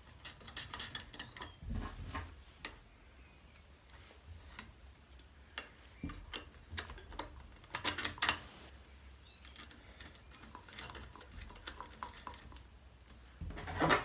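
Light, irregular metal clicks and clinks of two factory bolts being threaded in by hand to secure the bridging piece between the short shifter lever and the extended selector shaft, with denser clusters of clicks about eight seconds in and again near the end.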